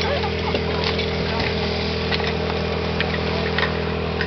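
Portable fire pump engine idling steadily, with scattered sharp clanks and knocks as the suction hoses and couplings are connected to it.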